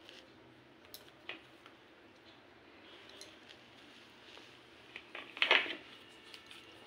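Faint handling sounds of soft samosa dough being pinched into small balls and set down on a stone countertop: a few light taps, and one louder brief pat near the end as a dough ball is put down.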